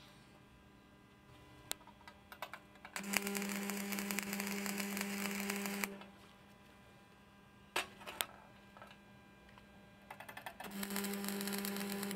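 Stick (electrode) arc welding on steel: a few sharp ticks as the rod is touched to the work, then the arc strikes and crackles with a steady low buzz for about three seconds and stops. After more ticks the arc strikes again near the end.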